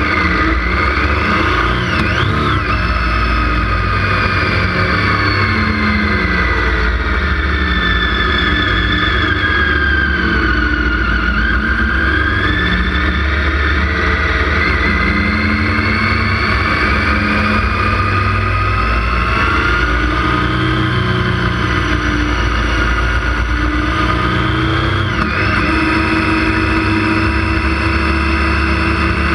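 Motorcycle engine under way, its pitch rising and falling with the throttle, dropping sharply and climbing again about two seconds in and near the end. A low wind rumble on the microphone runs underneath.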